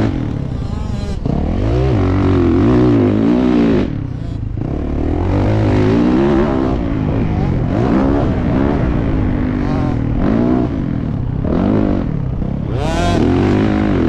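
Motocross bike engine revving hard and letting off again and again, its pitch rising and falling in repeated sweeps. There is a brief drop in power about four seconds in. Heard from the rider's helmet-mounted camera.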